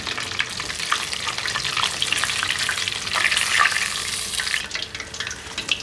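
Pork knuckles deep-frying in a pot of hot oil: a dense, crackling sizzle full of small pops. It thins out near the end.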